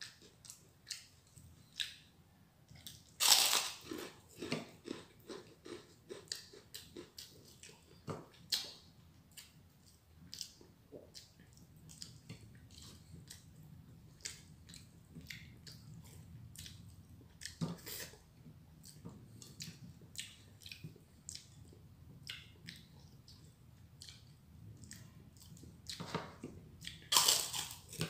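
A person chewing and biting crunchy food close to the microphone: repeated crackling crunches, the loudest about three seconds in, and more loud crunches or clinks near the end.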